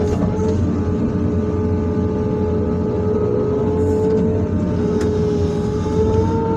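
Excavator's diesel engine running steadily under load, with a continuous whine from the hydraulic pump that wavers slightly in pitch.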